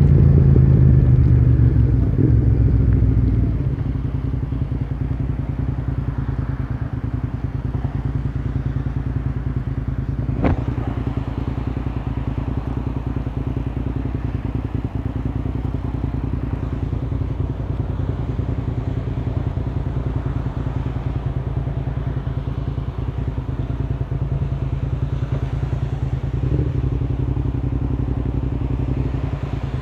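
Motorcycle engine running, heard close up: louder for the first few seconds, then settling to a steady idle. A single sharp click about ten seconds in.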